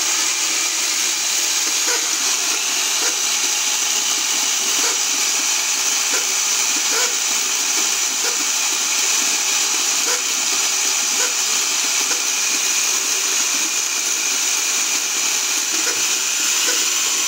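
RC car's electric motor and gear train running steadily at full throttle, a loud whir with a high whine, spinning a second 12-volt motor as a generator through the spur gear. A faint tick repeats about once a second. It is a little noisy: a negative contact has come loose and the pinion mesh needs adjusting.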